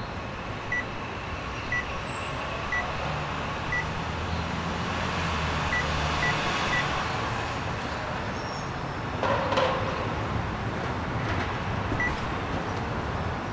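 Microwave oven beeping: single short beeps about once a second, then three quick beeps, over a low running hum that stops about six and a half seconds in and a steady hiss.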